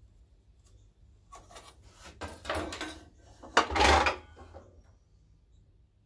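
A length of Merbau decking offcut is handled and slid into place on a mitre saw's metal table. There are scraping noises and, about three and a half seconds in, a sharp knock followed by a short scrape. No saw motor is heard.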